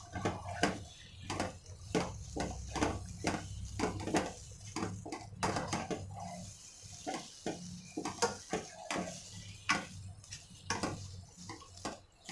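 Spatula stirring thick soya chunk keema in a nonstick pan, with irregular scrapes and knocks against the pan's sides and bottom.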